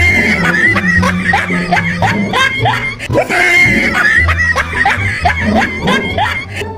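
Background music with a person laughing hard over it in quick, falling bursts.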